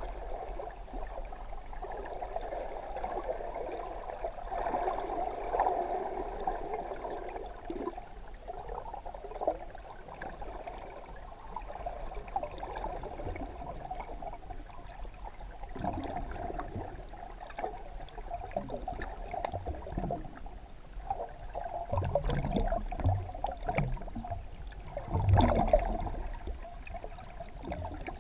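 Muffled water movement heard through an underwater camera housing: a steady sloshing wash with irregular knocks and bumps, the loudest about 25 seconds in.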